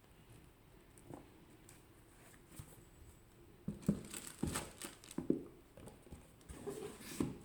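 Handling noises from unboxing sneakers: paper and packaging rustling, with light knocks and taps. The sounds come sparsely at first and grow busier and louder from about halfway through.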